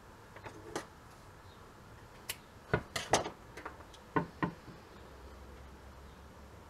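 An olive wood cutting board and its price tag handled on a wooden workbench: a run of light knocks and clicks as the board is touched and shifted by hand, most of them in the first two thirds.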